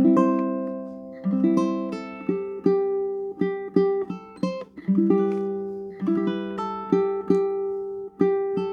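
Tenor-size plucked string instrument being played: chords and single notes picked one after another in short runs, each ringing out and fading before the next pluck.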